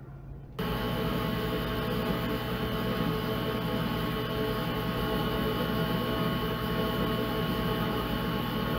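xTool D1 Pro 10 W diode laser engraving: the laser head's cooling fan and drive motors running with a steady hum and several whining tones. It starts abruptly about half a second in.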